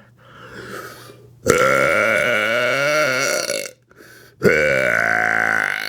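A woman's deliberate, loud burps: two long ones, the first about two seconds long and the second about a second and a half, with a short break between them.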